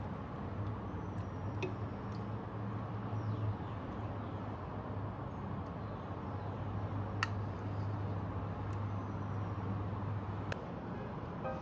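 Kimchi jjigae stew simmering in a saucepan on the stove: a steady hiss over a low hum, with a few light clicks of the spatula against the pot. The hum stops near the end.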